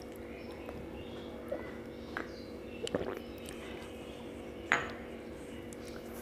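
Eating sounds: fingers working rice on a steel plate and chewing, with a few short clicks and clinks, the loudest about four and a half seconds in, over a steady low hum.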